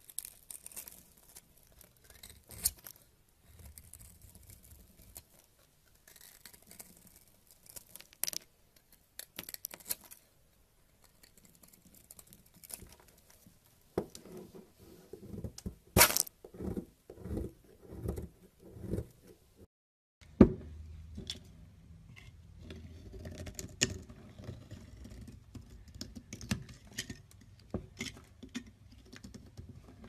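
A knife cuts into dry, crumbly bar soap, giving irregular crunching and scraping with sharp snaps as chunks break away; the loudest snap comes about halfway through. After a short gap, a blade shaves a smoother bar of soap with denser scraping.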